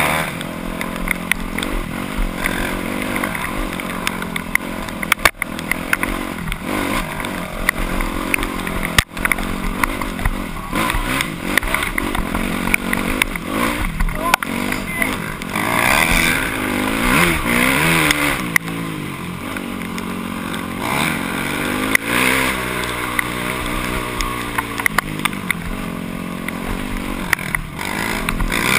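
Dirt bike engine running hard as it is ridden along a rough trail, its pitch rising and falling again and again with the throttle and gear changes, with short rattling ticks from the bumpy ground.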